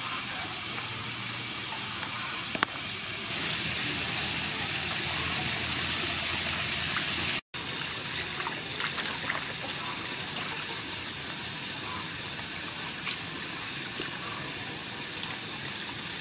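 Hands washing cucumber pieces and mint leaves in a steel bowl of water: splashing and swishing with small knocks against the bowl, from about halfway through. Before that, a steady hiss with one sharp click about two and a half seconds in.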